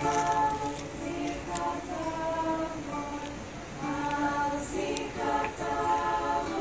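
Girls' choir singing a cappella in harmony, holding long notes in phrases with short breaks between them.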